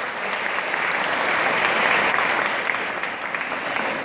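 Audience applauding: many hands clapping in a dense, steady patter that swells a little about halfway through.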